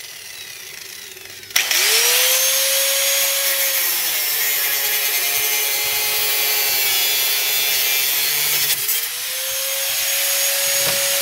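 Handheld power grinder working the sheet-metal bodywork of a Ford Capri's front end. It starts suddenly about a second and a half in and spins up to a steady high whine over a harsh hiss. It drops out briefly near nine seconds, then spins up again.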